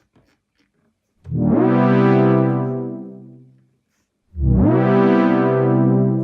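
Synth pad chord on a Dave Smith Instruments Tempest, played twice. Each note swoops down from a higher pitch at its start before settling, because an envelope is set to a positive pitch amount. The first chord enters about a second in and fades away; the second enters after about four seconds and holds.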